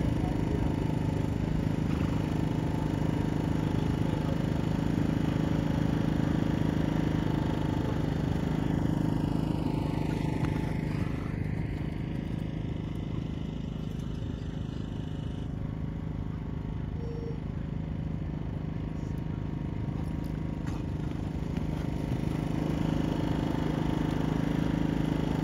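Steady low engine drone with a constant hum, dipping slightly in level midway.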